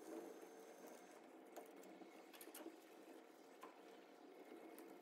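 Faint, soft rubbing of hand wet sanding: 1000-grit wet sandpaper worked back and forth over a guitar body's finish, with a few light ticks.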